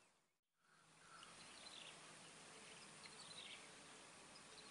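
Near silence: faint outdoor background hiss with a couple of faint runs of high chirps. The sound drops out briefly just after the start.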